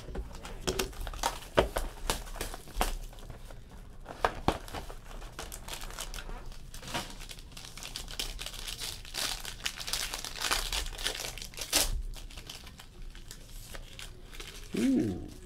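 Shrink-wrap and a foil card pack from a 2016 Topps Tier One baseball box crinkling and tearing in the hands as they are opened, with irregular crackles throughout.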